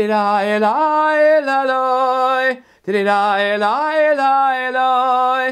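Male cantor singing Tehillim (psalms) solo and unaccompanied, in two long held phrases. Each phrase rises in pitch about a second in, with a short breath between them halfway through.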